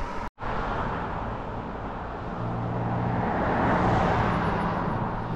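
A motor vehicle on a mountain road, its engine hum and tyre rush building to a peak about four seconds in, then easing off as it passes.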